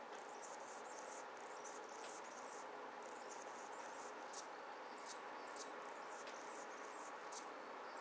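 Faint, steady hum of distant road traffic, with thin, high chirps and sharp ticks scattered over it.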